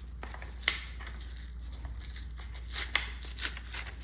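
Packaging of a Pokémon card pack being torn open and crinkled by hand: irregular sharp crackles and rips, loudest about a second in and again near three seconds, over a steady low hum.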